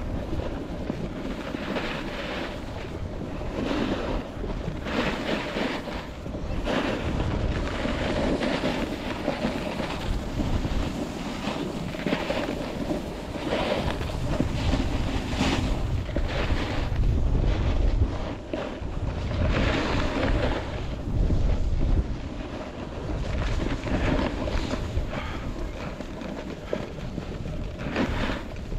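Skis scraping and hissing on snow through a series of turns, swelling every second or two, with wind buffeting the microphone as a low rumble.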